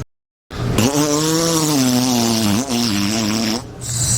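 A person's voice making a long, buzzy vocal sound effect that slowly falls in pitch for about three seconds, starting half a second after a moment of dead silence.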